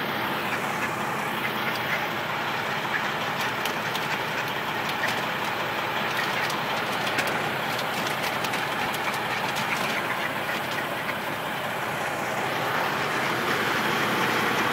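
Truck's diesel engine idling steadily with a light clatter.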